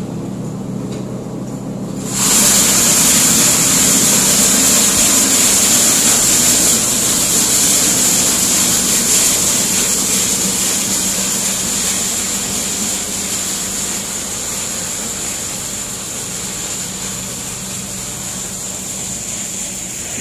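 Concrete block-making machine running: a steady electric-motor hum, then about two seconds in a much louder, even rushing noise cuts in and slowly eases off over the following seconds.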